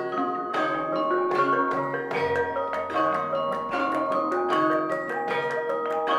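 Javanese gamelan ensemble playing: bronze-keyed metallophones struck with mallets in a steady run of ringing notes, with kettle gongs and hanging gongs. A low tone comes in about two seconds in and rings on.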